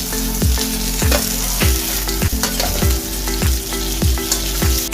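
Carrots and broccoli sizzling as they stir-fry in hot cooking oil in a pan, with regular low thuds about twice a second.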